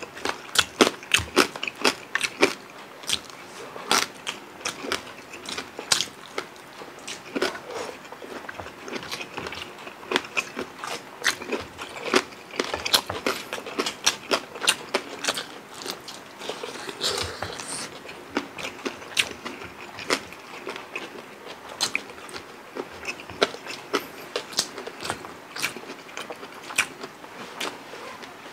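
Close-miked chewing and crunching of crispy deep-fried pork leg (lechon pata): many sharp, irregular crunches and crackles, several a second.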